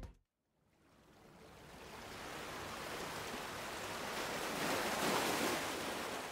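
Soft rush of ocean surf: after about a second of silence a single swell of water noise builds, peaks about five seconds in and begins to fade.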